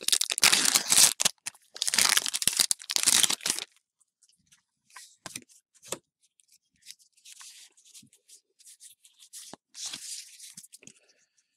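A Pokémon trading-card booster pack's foil wrapper being torn open and crinkled by hand, loud for about the first three and a half seconds. After that come faint rustles and light clicks as the cards are handled.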